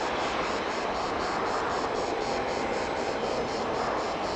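Boeing C-32A (757-200) jet's Pratt & Whitney PW2040 turbofans running as it rolls slowly along the runway: a steady jet hiss at an even level, with a faint whine that comes in about halfway through.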